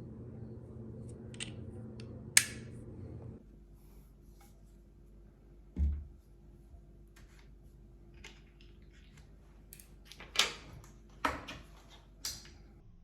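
Handling of a travel tripod's parts: a few sharp clicks, a dull thump about six seconds in, and a run of clicks near the end. A low steady hum stops about three seconds in.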